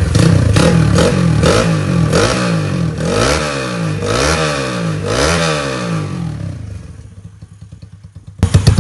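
Modified big-bore motorcycle engine revved with quick, light throttle blips, about one a second, six in all, each rising and falling in pitch. It then settles much quieter, and near the end a loud, fast-pulsing engine sound cuts in suddenly.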